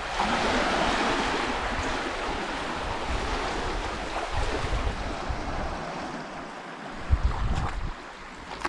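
Small waves washing onto a shallow beach, swelling just after the start and then slowly easing off, with wind gusting on the microphone, strongest near the end.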